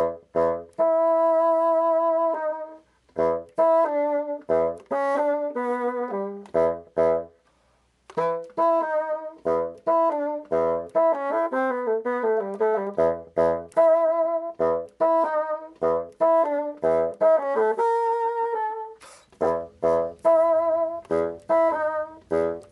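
Bassoon playing a jaunty melody of held and quick notes over a regular beat of low percussive hits, with a brief pause about seven seconds in.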